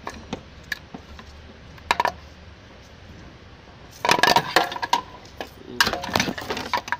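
Metal hand tools and small metal parts clinking and clattering in a few short bursts, busiest in the second half.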